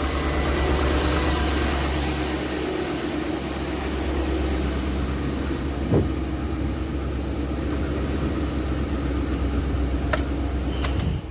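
A 2008 Chevy Avalanche's V8 engine idling steadily, with a single knock about six seconds in and a few light clicks near the end.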